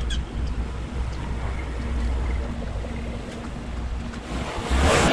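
Wind rumbling and buffeting on the microphone over outdoor street ambience, with a brief louder rushing swell near the end.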